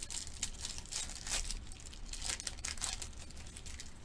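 Foil wrapper of a Panini Select basketball card pack being torn open and crinkled by hand: a quick, irregular run of crackles and rips.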